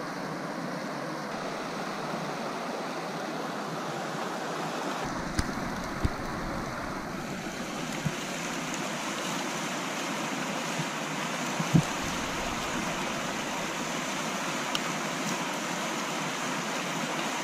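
Steady rush of flowing river water, with a few faint clicks.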